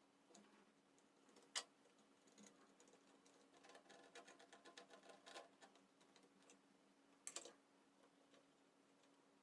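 Near silence with faint scattered clicks and light ticking over a low steady hum: one sharp click about a second and a half in, and a short cluster of clicks near the end.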